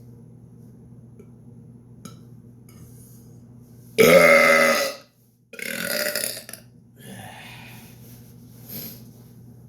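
A man burps loudly on purpose about four seconds in, for about a second, then burps again right after a brief break for about another second. Fainter throat sounds follow.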